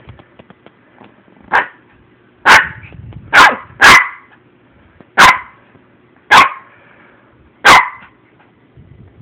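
Ten-week-old Shih Tzu puppy yapping: seven short, sharp barks at intervals of roughly a second, the first one softer than the rest.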